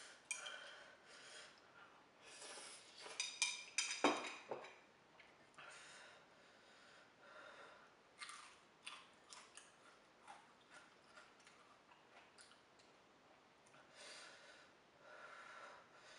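Quiet eating sounds: a person chewing, sniffing and breathing hard from very spicy food, with a cluster of sharp clicks about three to four seconds in.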